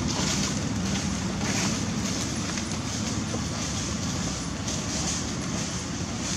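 Steady outdoor background noise: a low rumble, with a high hiss above it that swells and fades roughly once a second.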